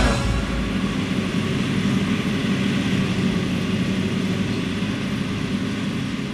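John Deere 7350 self-propelled forage harvester chopping maize and blowing it into a truck: a steady drone of engine and chopper, slowly fading out toward the end.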